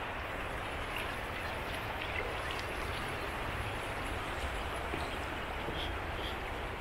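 Shallow mountain creek flowing over rocks: a steady rush of water.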